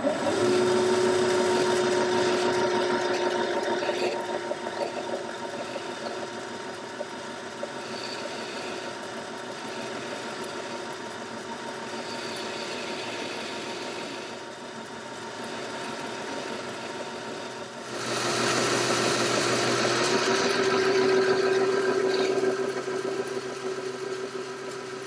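Boxford lathe running, with a boring bar cutting a taper bore in the spinning collet holder: a steady machine hum, louder at the start and again from about eighteen seconds in.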